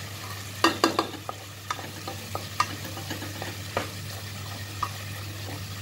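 Prawns in onion-tomato masala sizzling in oil in a non-stick kadai as they are stirred with a wooden spatula. Sharp knocks of the spatula against the pan come throughout, the loudest just under a second in.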